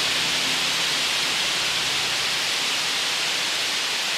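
Water pouring over a small river weir, a steady rushing hiss.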